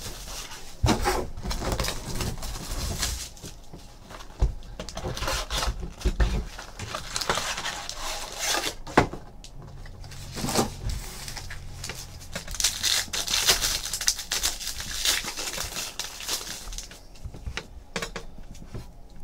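Handling of a cardboard trading-card hobby box and its wrapped card packs: irregular rustling and crinkling with light taps and clicks as the box is opened and the packs are taken out, one sharper click about nine seconds in.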